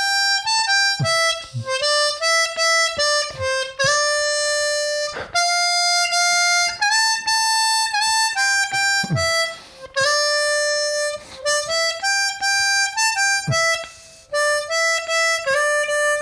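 Seydel 1847 Lightning diatonic harmonica playing a simple melody one note at a time, the notes stepping up and down in short phrases with brief breaths between them.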